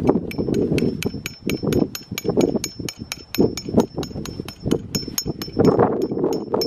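Hammer driving a metal tent stake into the ground: a steady run of quick strikes, about four a second, each with a bright metallic ring.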